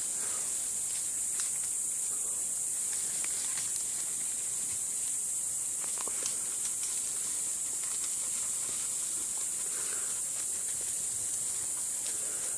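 A steady high-pitched hiss, like an insect chorus in the undergrowth, with faint scattered rustles and twig ticks from walking through the forest.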